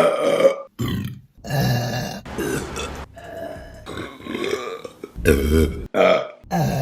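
Women burping, about eight short burps one after another, each cut off abruptly where one clip gives way to the next.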